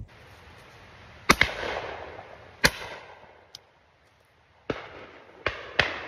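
Shotgun shots, five in all: two loud shots about a second and a half apart, then three more near the end, the last two close together. Each shot is followed by an echoing tail.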